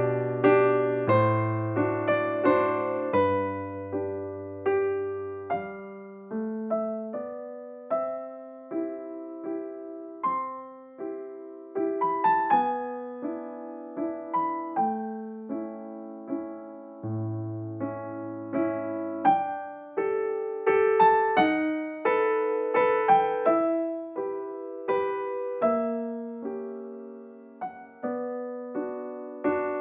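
Gentle electric piano background music, notes struck one after another in a steady, unhurried rhythm with soft chords beneath.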